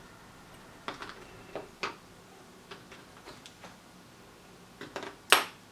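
Irregular small clicks and taps from handling a soldering iron and a small circuit board on a cutting mat during hand soldering, with one sharp click, the loudest, near the end.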